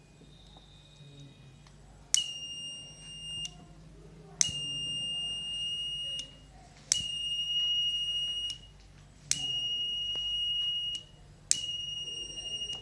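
The buzzer of a homemade fire alarm, run off a 9-volt battery, sounding five high-pitched steady beeps of about one and a half seconds each, roughly every two and a half seconds, each beginning with a sharp click. This is the alarm going off as its fire sensor picks up a flame.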